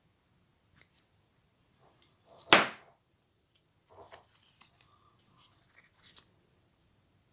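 Fly-tying scissors snipping once, loudly, through the synthetic fibres of a pink baitfish fly about two and a half seconds in, with a couple of faint clicks before it. Afterwards, light clicks and rustles of fingers handling the fly in the vise.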